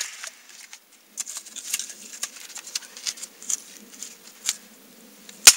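A hatchet chopping at the base of a small standing dead tree: scattered light ticks and crackles, then one sharp axe strike into the wood near the end.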